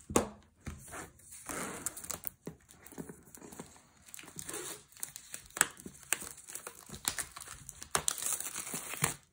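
Plastic shrink wrap crinkling and tearing as hands pull it off a cardboard box, in irregular crackles and rustles, the sharpest right at the start.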